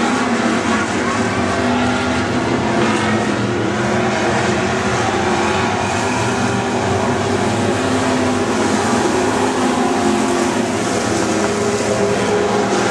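A pack of dirt-track stock cars racing around the oval, several engines running hard at once in a loud, steady blend.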